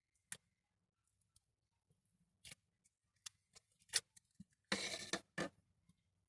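Plastic slime tub being opened and cloud slime handled: scattered small clicks and taps, with a short rustle about five seconds in.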